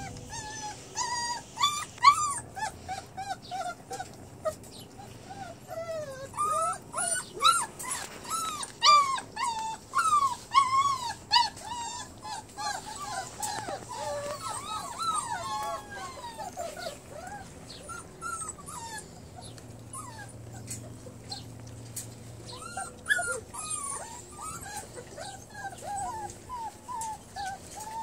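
Bernese Mountain Dog/Great Pyrenees mix puppies whimpering and whining in many short, high calls while crunching dry kibble from a metal bowl. The calls come thick and fast for the first half, thin out, then pick up again near the end.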